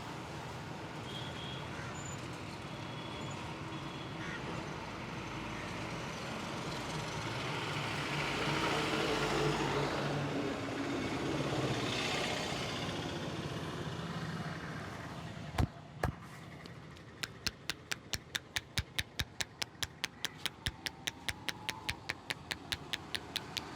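Street traffic noise, then two sharp cracks close together, followed by a fast, even run of percussive hand slaps, about five or six a second: a massage tapping on the head or body.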